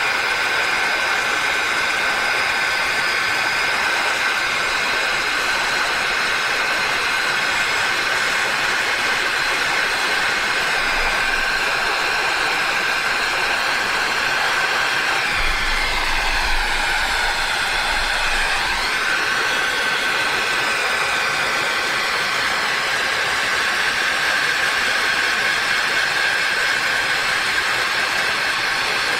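Electric heat gun running steadily, its fan whining over the rush of air, as it shrinks the tubing of watertight heat-shrink butt connectors. Around the middle the whine dips in pitch and comes back up.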